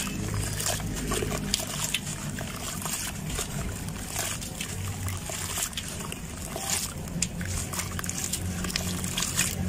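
Gritty sand-cement lumps being crumbled by hand: many small crunches and crackles as grit breaks away, with sand and fragments pattering and splashing into a basin of water.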